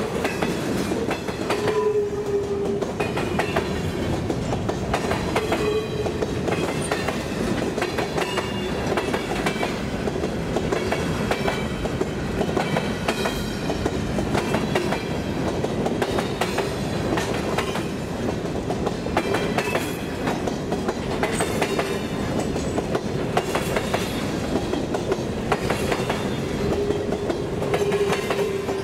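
Freight cars rolling past close by, their steel wheels clicking rapidly and steadily over the rail, with a faint squeal that comes and goes.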